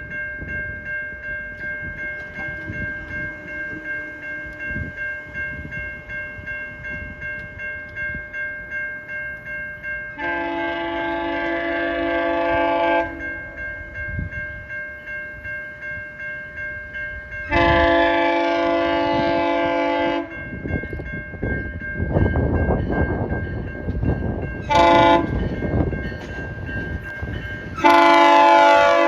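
Railroad crossing bell dinging steadily as a GO Transit train's multi-chime air horn sounds two long blasts, a short one and a long one, the standard grade-crossing signal. The train passes in between with a rumble and wheel clatter.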